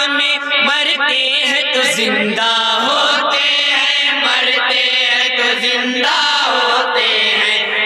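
A chorus of men chanting a naat, a devotional song in praise of the Prophet, with voices only and no instruments.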